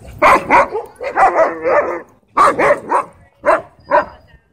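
Husky-type dogs wrestling, one of them barking: a run of short, pitched barks with a longer wavering call about a second in.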